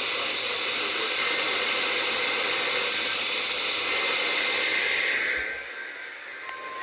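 Steady radio static hiss from an AM radio receiver, fading away about five and a half seconds in.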